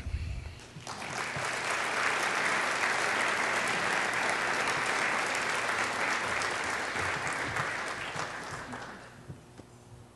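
Audience applauding, building up about a second in, holding steady, then dying away about nine seconds in.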